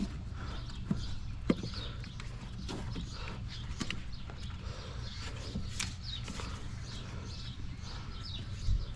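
Scattered clicks and knocks of hand tools on a truck's metal, irregular, over a steady low hum, with birds chirping now and then.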